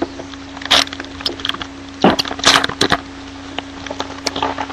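Foil trading-card pack wrapper crinkling in a few short bursts as the cards are pulled out, with a faint steady hum underneath.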